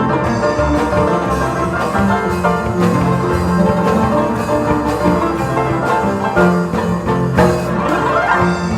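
Paraguayan harps playing a lively plucked melody over a steady bass line, with quick rising runs across the strings near the end.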